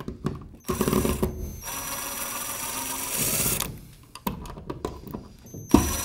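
Cordless drill-driver running for about three seconds as it backs out an electrical outlet's long mounting screw, followed by a few light clicks. It starts running again near the end.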